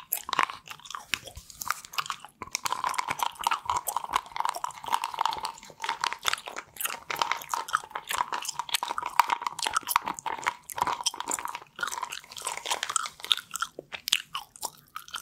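Ice Breakers Ice Cubes gum being chewed right against a microphone: a dense, continuous run of quick clicks and mouth sounds.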